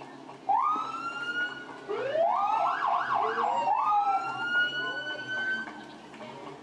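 Fire truck sirens sounding: a wail rises about half a second in, a second siren joins at about two seconds with a fast up-and-down yelp, then a long rising wail fades out near the end.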